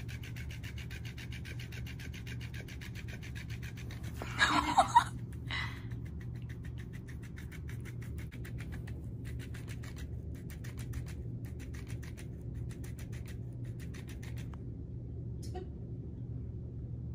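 Electronic flapping fish cat toy running, its motor making a rapid ticking rattle as the tail flaps against the cat and carpet, then stopping near the end. A short voice sound is heard about four seconds in.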